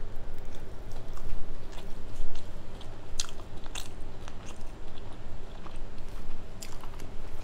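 Close-miked chewing and biting of a cooked sushi roll, with irregular crunchy clicks and wet mouth sounds.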